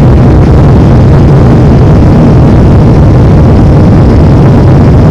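Airliner engine noise: a loud, steady low rumble that does not change.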